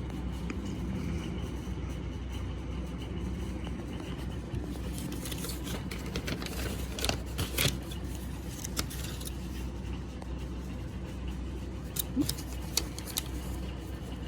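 Light handling noises: rustling with a few sharp clicks, clearest about seven seconds in and again near the end, over a steady low hum.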